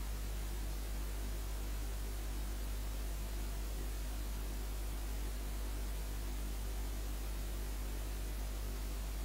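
Steady low electrical hum under a constant hiss, with nothing else sounding: the noise floor of the recording.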